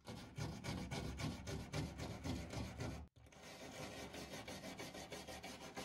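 Metal scraper and small wire brush scrubbing chemically softened lead paint off a wooden cabinet in quick, repeated strokes. The paint is lifting easily. There is a brief break about three seconds in, then a run of faster, lighter strokes.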